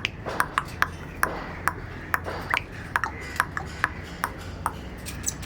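A string of sharp, ringing clicks at irregular spacing, roughly three a second, over a faint low hum.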